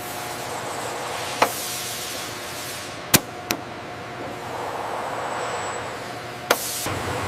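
Steady machine hiss with four sharp mechanical clicks: one about a second and a half in, two close together around three seconds in, and one near the end.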